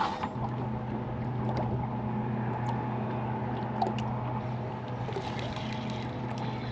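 Bass boat's bow-mounted electric trolling motor humming steadily; it comes on just after the start. A few light clicks sound over it.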